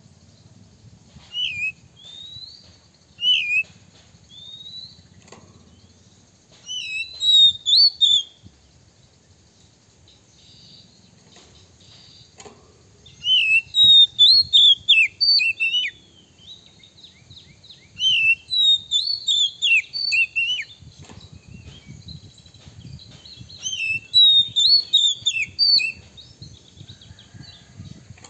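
Male oriental magpie-robin singing. A few single rising and falling whistles open, then longer phrases of rapid, loud whistled notes come in several bursts separated by pauses.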